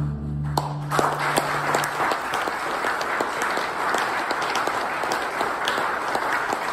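A live band's last chord stops about half a second in, one low note ringing on to about two seconds, and the audience breaks into steady applause.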